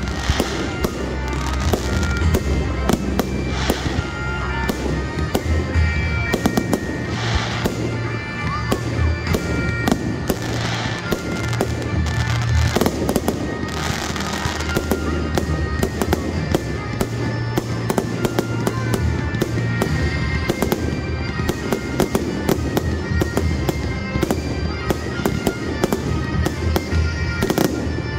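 Fireworks display: a rapid, continuous run of bangs and crackles from shells bursting overhead, with music playing underneath.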